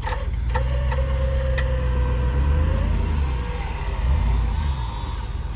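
A vehicle engine running with a steady low rumble that swells briefly about four seconds in. Over it sits a thin whine that holds steady, then rises and fades around the middle, with a couple of faint clicks early on.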